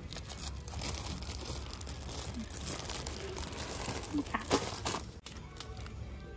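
Plastic packaging crinkling and rustling as it is handled, with a run of sharp crackles about four to five seconds in.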